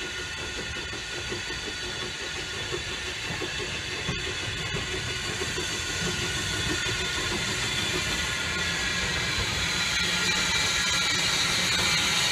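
Small Peckett 0-4-0 saddle tank steam locomotive running slowly toward the listener, growing steadily louder as it approaches. Its steam hiss becomes stronger near the end as it draws close.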